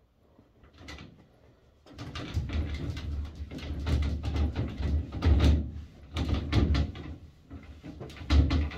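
A cloth wiping the glass panels of a shower enclosure, the panels knocking and rattling in their frame, starting about two seconds in and going on in quick irregular strokes with a loud knock near the end.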